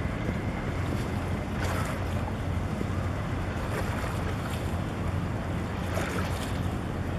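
Wind buffeting the microphone over a steady low rumble, with harbour water lapping and two brief hissy swells, about two seconds in and near six seconds.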